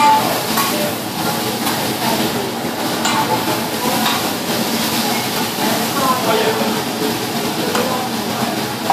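Food sizzling on a steel teppanyaki griddle while metal spatulas and a knife scrape and clink against the plate several times.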